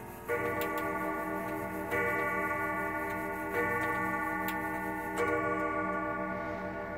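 Grandfather clock's Kieninger movement striking the same deep ringing note four times, about a second and a half apart, each stroke left to ring on, with the clock ticking beneath.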